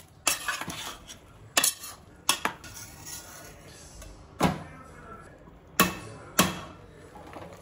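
Metal spatula and spoon clinking and scraping against a pressure cooker and each other while stirring and scooping boiled peas: about six sharp clinks, the loudest a little after the middle and near the end.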